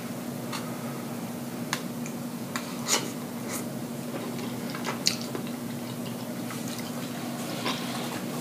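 Chewing and wet lip smacks from someone eating bread dipped in cheese fondue: a scatter of short clicks and smacks, the loudest about three seconds in and again about five seconds in, over a steady low hum.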